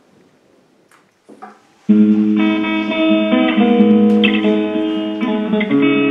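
A few faint knocks, then about two seconds in, recorded guitar music cuts in suddenly and plays on.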